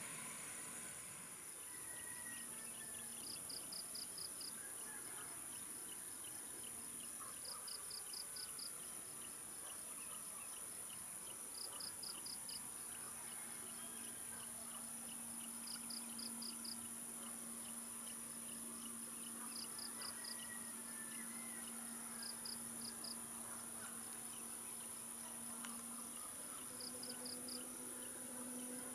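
Insects chirping in short trains of rapid pulses about every two seconds, over a steady high-pitched whine. Underneath is a faint low steady drone of a distant airliner's engines, which rises slightly in pitch near the end as the aircraft lines up for take-off.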